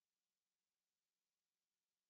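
Near silence: the sound track is essentially muted, with only a faint steady hiss.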